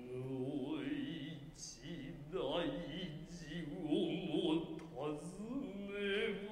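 Noh chanting (utai): a male voice intoning long, drawn-out syllables with a wavering pitch, in several phrases with short breaks between them.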